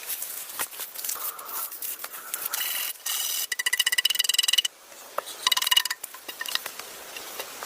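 A hand tool scraping and rasping against wood in short runs of fast, even strokes, with scattered clicks between them; the longest run comes about halfway through.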